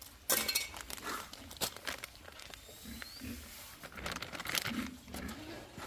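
Pigs grunting, with a few short, sharp noises in between.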